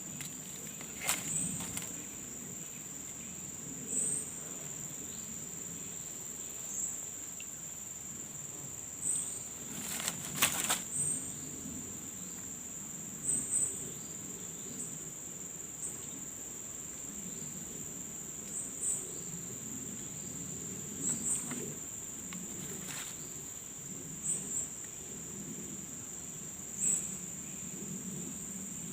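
A steady, high-pitched chorus of insects runs throughout. A few scattered clicks and knocks come on top of it, the loudest just past a third of the way in.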